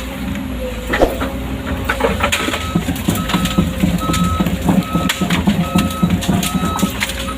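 Excavator's diesel engine running with scattered clanks and knocks, and its travel alarm beeping six times at an even pace, about one beep every three-quarters of a second, starting about two and a half seconds in.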